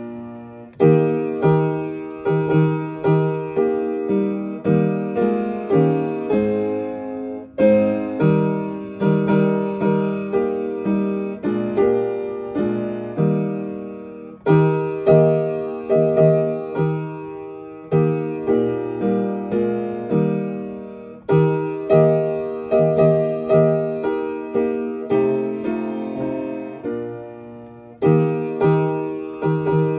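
Solo piano playing a slow hymn accompaniment in E-flat major and 6/4 time: full chords struck in an even beat, each dying away, with a new phrase starting about every seven seconds.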